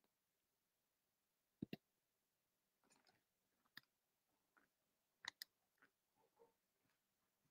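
Faint computer mouse clicks over near silence: a quick double click about a second and a half in, a single click a couple of seconds later, and another double click past the middle.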